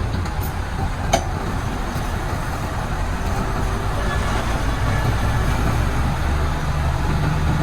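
Heavy diesel engines of dump trucks and earthmoving machines running steadily with a low drone, and a single sharp click about a second in.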